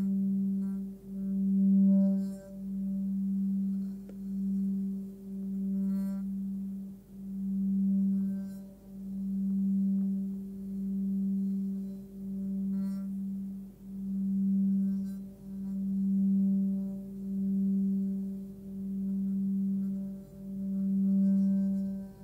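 Hand-forged Nepalese singing bowl, 18.5 cm across and tuned to about 194 Hz (G), sung by rubbing a wrapped wooden stick around its rim: a sustained low tone with a fainter higher overtone, swelling and fading about once a second. A few light ticks of the stick against the rim are heard.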